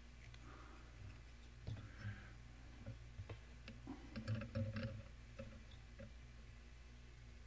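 Faint scattered clicks and light rustling of hands working thread and goose biots at a fly-tying vise, over a steady low hum.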